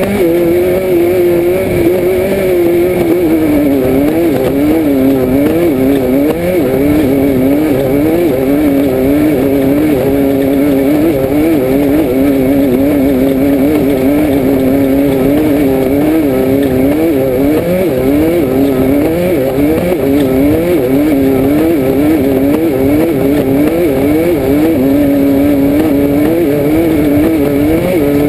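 Class 5/1600 Baja Bug's air-cooled Volkswagen engine running hard, heard from inside the car, its revs rising and falling every second or so with steadier stretches in between as the car races over rough off-road terrain.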